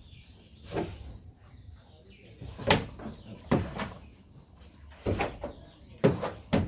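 Sow on heat nosing and pushing her snout against a wooden pen partition: a series of short knocks and rattles from the boards, about half a dozen, closer together near the end.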